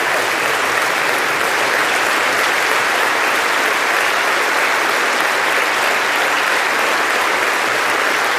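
Sustained applause from a large audience: dense, even clapping that holds steady without a break.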